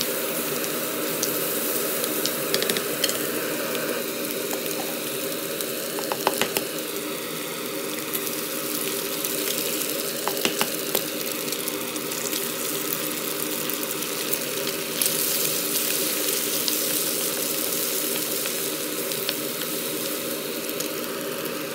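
Food sizzling in a frying pan, with a steady hum underneath. There are a few sharp clicks about six seconds in and again about ten seconds in.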